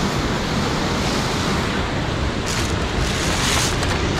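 Sea surf washing against rocks, a steady rushing noise, with a wave surging in and adding hiss about two and a half seconds in. Wind buffets the microphone.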